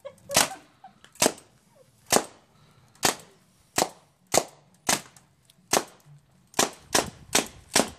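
Tippmann Alpha Black paintball marker firing single shots, about a dozen sharp pops roughly a second apart, coming faster near the end.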